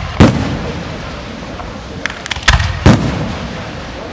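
Aerial fireworks shells bursting: a loud bang just after the start, a few smaller pops, then two heavy bangs close together about two and a half seconds in, each trailing off in a short rumble.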